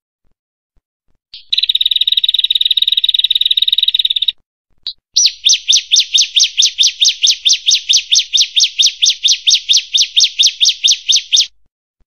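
Prenjak, a small Indonesian warbler, calling loudly. First comes a fast, buzzy, high trill lasting about three seconds. After a short pause follows a long series of sharp rapid notes, about five a second, each sliding down in pitch.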